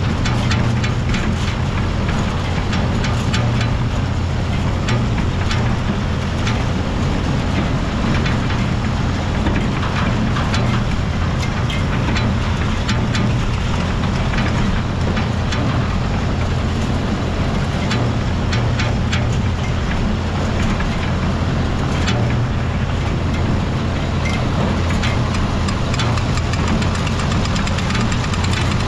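Small farm tractor engine running steadily under a steady load, with a constant low drone and frequent light clicking and rattling.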